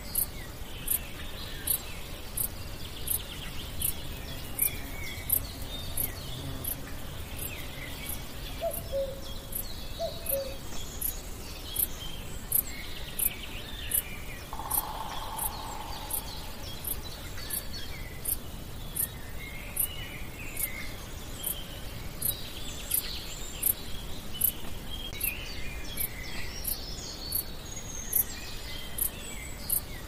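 Songbirds singing in scattered phrases, over a very high-pitched chirp repeating steadily about once every 0.7 s. A low two-note call comes twice around a third of the way in.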